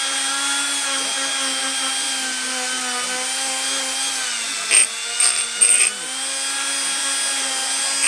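Cordless Dremel rotary tool running at high speed for metal polishing, a steady high whine. Its pitch sags slightly about four seconds in, and three short scratchy bursts come between about five and six seconds in.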